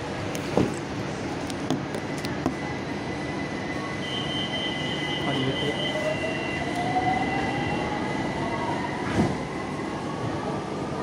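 Inside a BTS Skytrain car standing at a platform: the steady rumble of the train's equipment, with a few clunks. A steady high tone runs through the middle, and a whine rises slowly in pitch through the second half.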